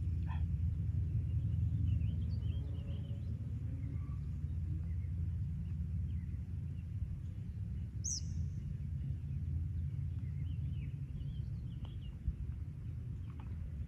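Low, fluctuating rumble of wind on the microphone, with small birds chirping now and then. About eight seconds in there is one brief high-pitched sound.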